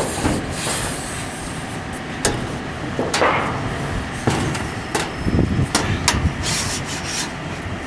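Metal-framed solar panel being turned over and set down onto metal mounting rails on a corrugated metal roof: scattered knocks and scrapes of metal on metal over steady background noise.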